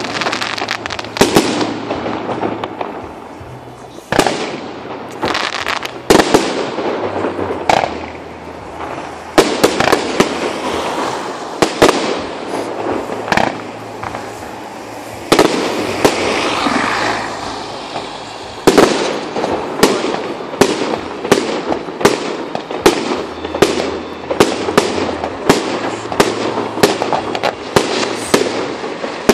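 Fireworks display: aerial shells bursting with sharp bangs and crackling, heard through a phone's microphone. The bangs come every second or two at first, then about two a second through the last ten seconds.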